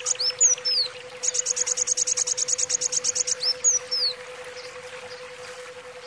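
Caged kolibri wulung (a sunbird) singing: a few sharp chirps with downward slurs, then a fast, even trill of about ten notes a second lasting about two seconds, then more slurred chirps about four seconds in.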